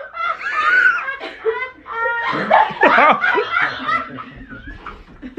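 A person laughing hard, on and off, in high-pitched fits.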